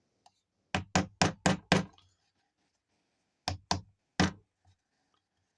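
Mallet blows on a sterling silver ring on a ring mandrel, rounding it out: a quick run of five strikes, about four a second, then three more after a pause of about a second and a half.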